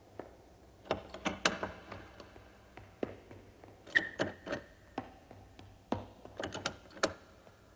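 Metal doorknobs turned and rattled against their latches, a string of irregular clicks and clunks, with a short squeak about halfway through: the doors are locked and will not open.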